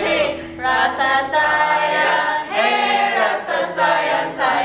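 A group of voices singing together without accompaniment, in short phrases with brief breaks between them.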